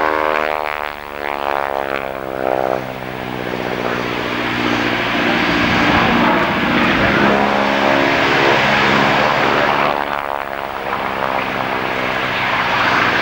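Single-engine propeller aerobatic plane's engine droning steadily as it flies its display. The sound takes on a swishing, phasing sweep near the start and again about ten seconds in as the plane passes overhead.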